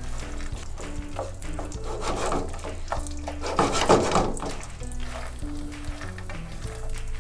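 Peanuts frying in hot oil in a pan and being stirred with a spoon, with louder swells of stirring and sizzling about two and four seconds in, under background music.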